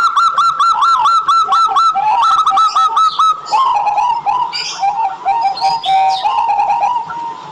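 Zebra dove (perkutut) cooing: a fast run of repeated notes for about three seconds, then slower, lower rolling coos, with a few higher chirps from other birds in the middle.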